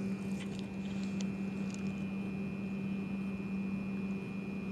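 A steady mechanical hum with a thin high-pitched whine over it. A few faint light clicks come in the first two seconds.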